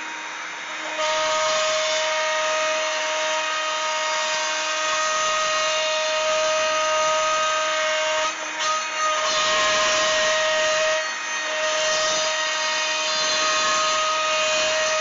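Makita compact router on a Shapeoko CNC running at full speed and cutting a circular hole in plywood: a steady high whine over rough cutting noise, getting louder about a second in as the bit bites into the wood.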